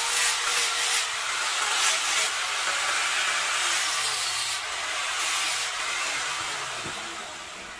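Small electric angle grinder with a sanding disc abrading a piece of kemuning wood, a steady, loud hiss. About six seconds in it comes off the wood and the sound fades away gradually as the disc spins down.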